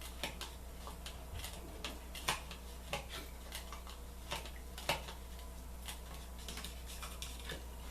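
Irregular light clicks and taps as a small lump of Pears' transparent soap is pressed flat into the bottom of a shaving bowl, about a dozen over several seconds with two louder knocks, over a faint steady low hum.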